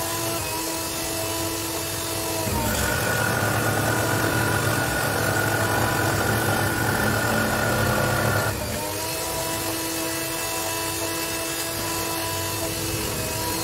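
Scroll saw running with a steady motor hum. From about two and a half seconds in to about eight and a half seconds it grows louder and rougher as the reciprocating blade cuts through an acrylic sheet, then drops back to the plain running hum.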